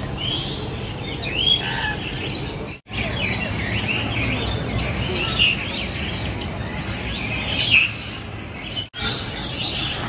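Many birds chirping and calling over one another in an aviary, short high chirps all the way through over a steady low hum. The sound drops out briefly twice, about three seconds in and near the end.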